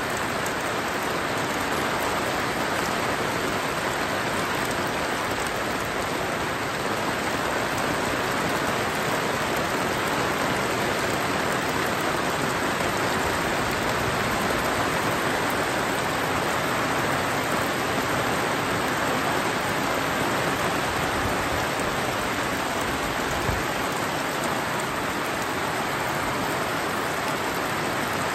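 Heavy, steady rain falling on a fabric awning overhead and the lawn around it, with water pouring off the awning's edge.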